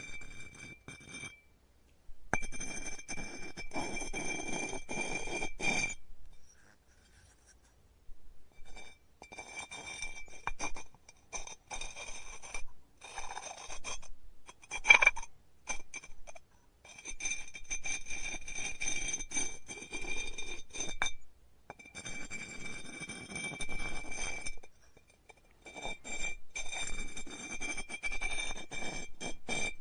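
Pottery studio work sounds: tools scraping and rubbing on clay in stretches of a few seconds, broken by short pauses, with a sharp clink about fifteen seconds in.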